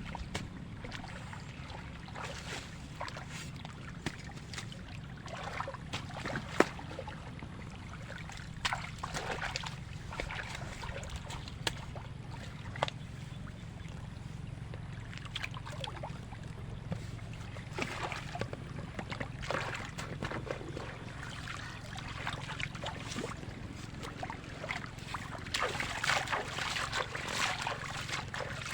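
Water splashing and sloshing in irregular bursts over a steady low rumble.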